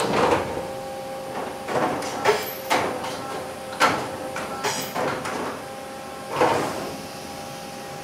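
Horizontal machining center's automatic tool changer loading the Renishaw spindle probe: a series of clunks and sliding sounds as the arm swings the tool into the spindle and the changer door slides shut, over a steady machine hum.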